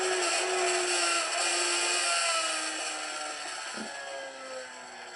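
Racing motorcycle engine on an onboard lap recording, played back through a laptop's speaker: high revs along a straight, then the engine note drops in steps and fades as the bike slows and leans into a corner.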